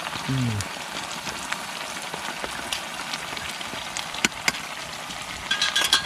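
Potatoes and onion sizzling in hot oil in a frying pan, a steady crackling hiss, with scattered sharp clicks and a brief clatter of a utensil against the pan near the end.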